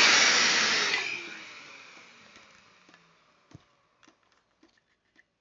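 Festool Domino joiner and its dust extractor running, then winding down to a stop over about the first two seconds after a brief test start that shows the extractor will run again. After that, only a few faint clicks and rustles of earmuffs and safety glasses being put on.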